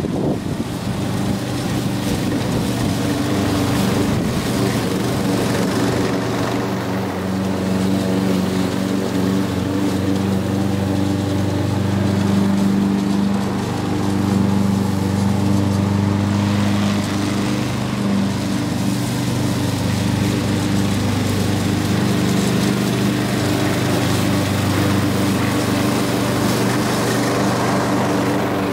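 A 20-inch walk-behind push mower's small engine running steadily while it cuts grass.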